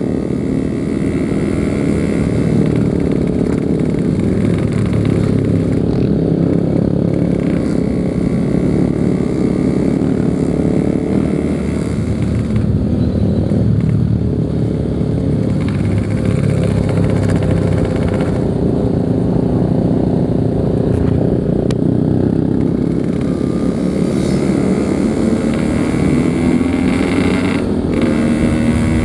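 Yamaha RX-King 135cc two-stroke single-cylinder motorcycle engine running steadily under the rider at an easy cruise, with only small changes in throttle.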